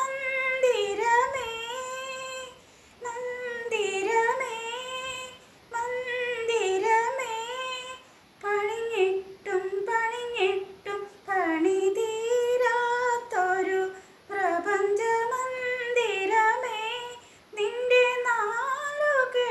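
A woman singing a Malayalam film song unaccompanied, in a high voice, in phrases of two to three seconds with short breaths between them.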